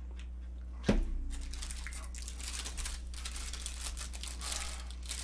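A sharp thump about a second in, then a plastic snack wrapper crinkling and rustling for several seconds as it is handled and torn open.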